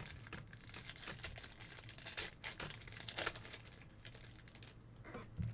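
Foil trading-card pack wrapper crinkling and tearing as it is ripped open, in a series of short crackly rips.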